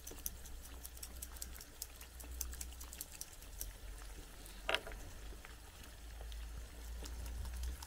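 Eggs frying in butter in an aluminium nonstick pan over an alcohol stove: a steady crackle of many small pops, with a low hum underneath. A single knock comes about five seconds in.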